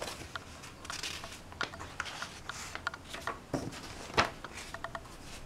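Pages of an old 1940s newsprint magazine being handled and turned: soft dry paper rustling with scattered light crackles, the sharpest a little past four seconds in.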